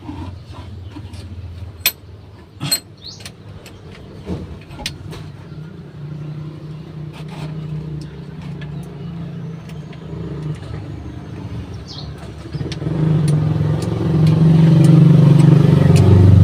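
A motor vehicle engine running steadily, growing much louder about thirteen seconds in. Sharp metallic clicks and knocks come in the first few seconds.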